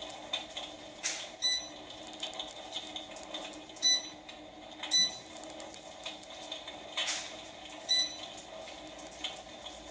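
Irregular crackles and pops, like burning logs, repeating every second or so over a steady low hum: the simulated fire-crackle sound of an electric fireplace.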